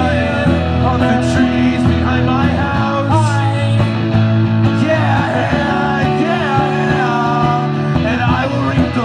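Rock band playing a song, guitar to the fore with a melodic line bending in pitch over a steady bass and a full backing.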